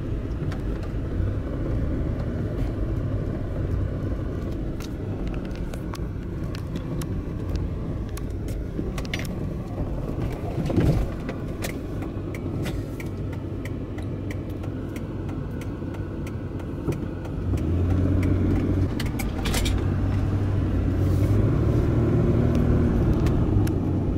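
A car driving, heard from inside its cabin: a steady low engine and road hum with a few light clicks and rattles. The hum grows louder about two-thirds of the way through.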